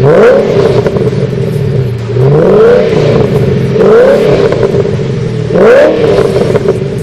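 FPV BF GT Ford Falcon's V8 idling through an XForce twin 2.5-inch quad-tip performance exhaust, blipped four times, each rev rising and dropping back to idle.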